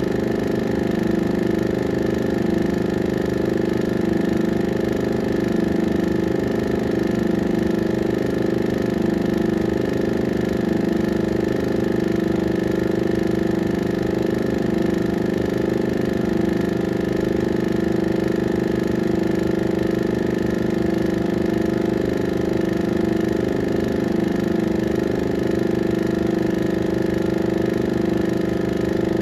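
Steady mechanical hum of a 16mm film projector running, several held tones over a fast low flutter, unchanging throughout.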